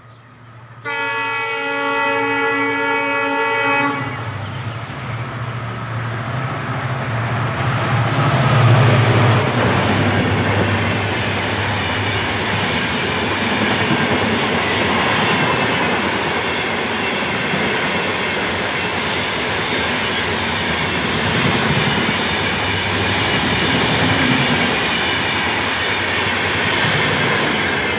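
Indian Railways WDP4-class diesel locomotive sounding its horn in one steady multi-tone blast of about three seconds, starting about a second in. It then passes at speed, loudest a few seconds later, and is followed by a long rake of passenger coaches rushing by with a continuous roar of wheels on rails.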